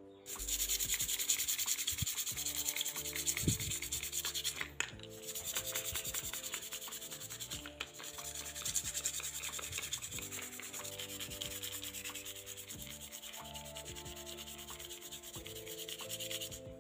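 Minnow fishing lure being sanded by hand, abrasive rubbing back and forth over its body in continuous scratchy strokes, stopping briefly twice. This is surface preparation, sanding off the old finish before the lure is repainted.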